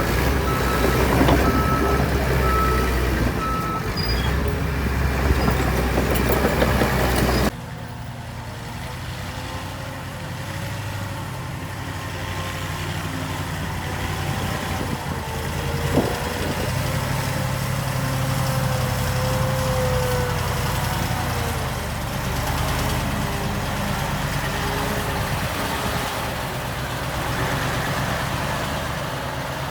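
Heavy earthmoving machinery running, with a reversing alarm beeping about twice a second for the first few seconds. About seven seconds in the sound cuts abruptly to a quieter engine run with a faint whine and a single sharp click partway through.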